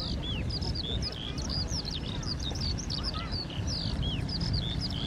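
A flock of small birds calling overhead: many quick, high, hooked chirps overlapping without pause, over a low steady rumble.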